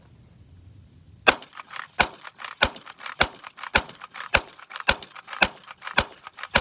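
Uberti 1873 Winchester replica lever-action rifle fired rapidly with .38 Special rounds. About ten sharp shots come roughly half a second apart, starting a little over a second in, with the clack of the lever being cycled between shots.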